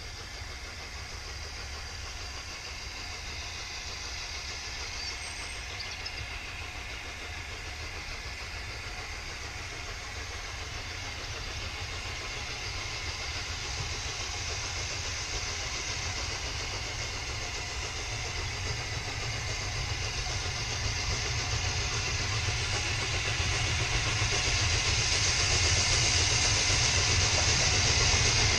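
LNER Peppercorn A1 Pacific steam locomotive 60163 'Tornado' approaching from a distance, its steady running noise growing gradually louder, heard from track level with a steady low rumble underneath.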